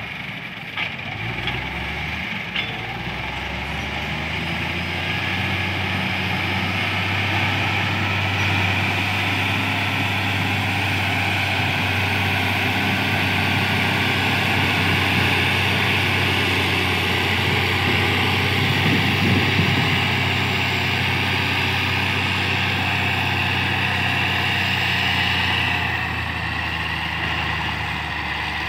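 Caterpillar 14G motor grader's diesel engine working under load as the blade cuts the soil, a steady heavy drone that grows louder as the grader passes close by and eases off near the end.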